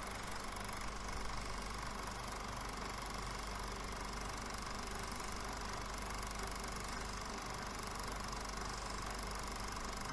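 Cine film projector running steadily: a continuous mechanical whirr and rattle of the film transport with a constant hum.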